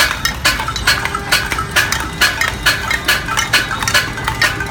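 Pots and pans being banged in a cacerolazo protest against utility-rate hikes: uneven, repeated metallic clanging, about four strikes a second.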